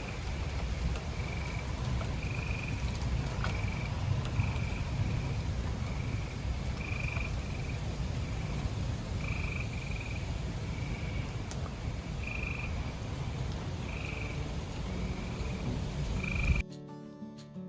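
Frogs calling outdoors: short high calls repeating about once a second, some louder and some fainter, as from several frogs, over a low steady rumble. The calls cut off suddenly near the end.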